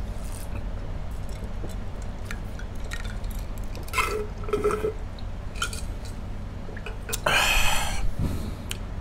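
A person chewing and eating pork ribs, with small wet mouth noises and clicks over a steady low hum, and one louder noisy burst about seven seconds in.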